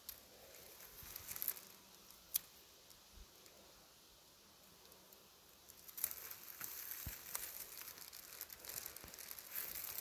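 Faint rustling and crackling with a few sharp clicks, becoming denser and louder about six seconds in.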